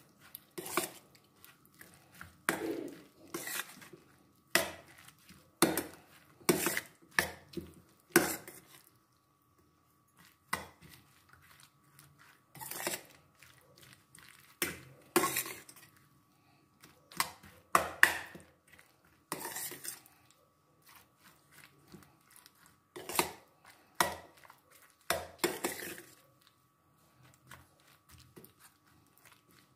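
A metal spoon clinks and scrapes against a glass mixing bowl as it stirs a thick, creamy macaroni, cabbage and apple salad. The strokes are irregular, about one or two a second, with a short lull about a third of the way in.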